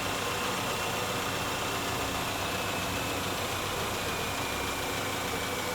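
Honda car engine idling steadily.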